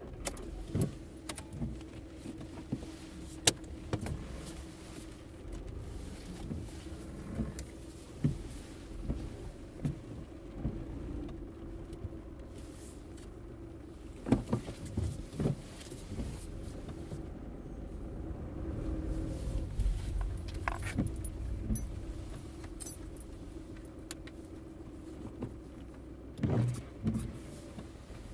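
Interior of a car being driven: a steady low road-and-engine rumble with a constant hum, broken by frequent small clicks, rattles and knocks from the cabin.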